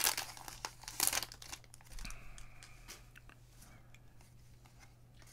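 A trading card pack's wrapper torn open and crinkled: two loud rips, one at the start and another about a second in, then fainter crinkling.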